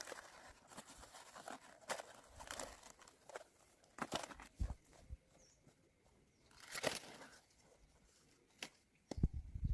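Irregular clicks and short rustling noises from something being handled, with a cluster of low thumps near the end.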